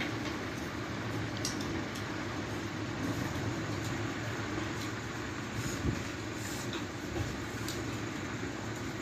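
Steady background hum or rumble that never lets up, with a few faint light clicks of chopsticks against plates and bowls.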